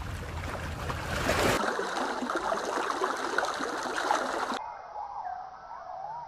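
Water splashing and trickling, changing character about a second and a half in. Near the end it gives way to faint wavering bird calls.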